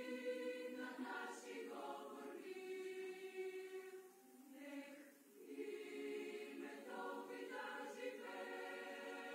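A girls' choir singing, with long held notes and a short break between phrases about four seconds in.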